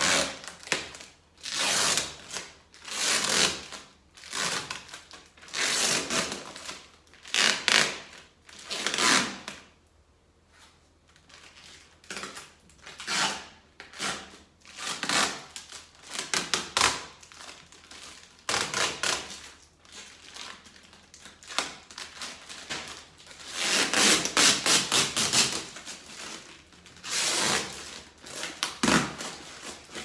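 Thin clear plastic protective film being peeled and crumpled off a stainless-steel refrigerator door, crinkling and rustling in repeated irregular bursts.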